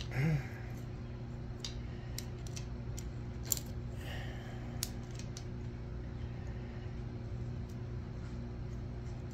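Screwdriver clicking and scraping on the camshaft retainer plate bolts of a Ford FE big-block as they are driven in: a handful of light metallic clicks, the sharpest about three and a half seconds in, over a steady low hum.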